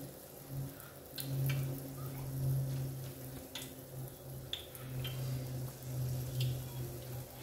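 Hot oil sizzling in an electric deep fryer with dough balls for mikate frying in it, while more dough is dropped in by hand. A few sharp clicks and knocks break in, over a low hum that swells and fades.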